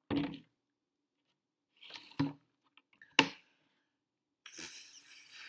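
A person's short gasps and throat noises right after a gulp of drink, a sharp knock about three seconds in, and a longer hissing breath near the end.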